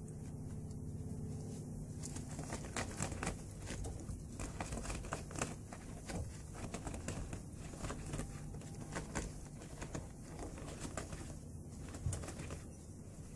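Prairie dog rummaging through cut pieces of jute burlap tree wrap and hay, making a run of dry crackling rustles that starts about two seconds in, over a low steady hum.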